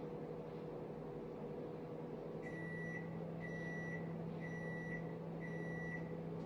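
A steady low electrical hum with four evenly spaced high electronic beeps, about one a second, starting a little over two seconds in.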